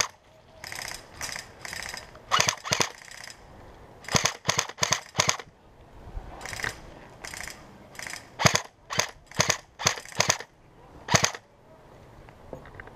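Airsoft guns firing, single pops and short rapid strings of shots at irregular intervals.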